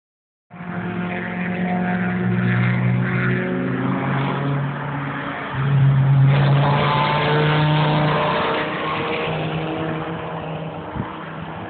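A Peugeot 205 GTI's four-cylinder engine driving hard around a race circuit. Its note shifts in steps as it changes gear, and it is loudest from about six seconds in.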